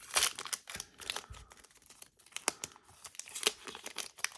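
Foil Pokémon card booster pack being torn open and crinkled by hand: irregular crackling and short ripping bursts.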